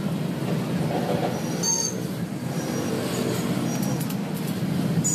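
Electric stick welding on a steel square-tube frame: a steady crackling, hissing arc as a joint is run. A brief high whine comes about two seconds in.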